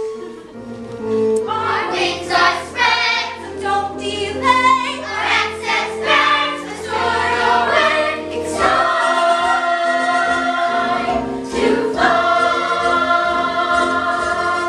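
A group of voices singing a stage-musical number together over instrumental accompaniment, moving to long held notes in the second half.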